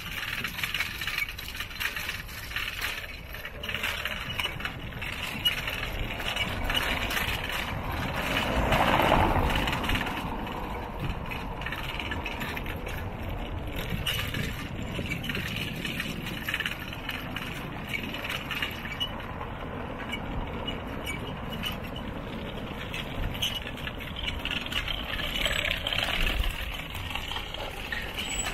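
Ride noise from a moving bicycle on city streets: the bike clinking and rattling over the road surface, with a louder passing swell about nine seconds in.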